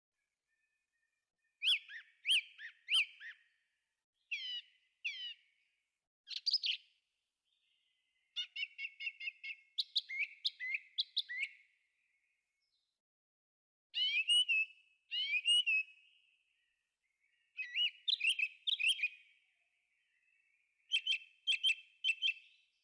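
Thrush singing: a series of short, varied phrases of chirps and quick sliding notes, separated by pauses of about a second, with some phrases repeated twice in a row.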